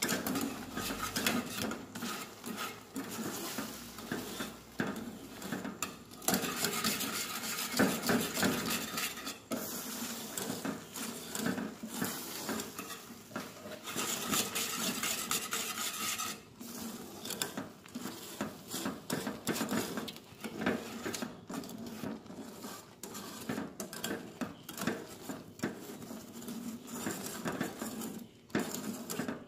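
Wire whisk scraping and clinking against a metal pan while a thick dulce de leche mixture is stirred continuously.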